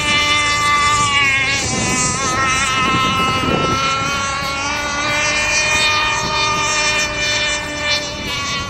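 Radio-controlled T-43 catamaran speedboat running flat out across the water, its motor a steady high-pitched whine that wavers and drifts in pitch as the boat runs.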